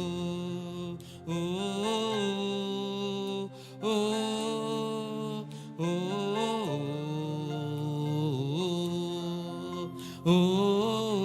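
Slow worship singing: a voice holding long, wordless 'oh' notes that slide up and down in pitch, in phrases of a few seconds with short breaks between them.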